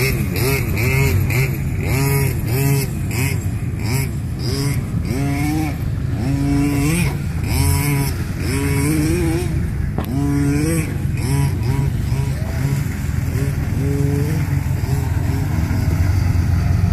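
Jeep Wrangler YJ engine revving up and down over and over as it churns through mud and shallow water, over a steady low engine drone.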